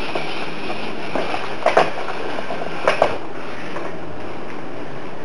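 Mini RC crawler with twin small electric motors driving a Tamiya 1/32 Mini Monster gearbox, running with a steady whir. Several sharp plastic knocks come in two pairs, near two and three seconds in, as the crawler tips off a stack of books and lands.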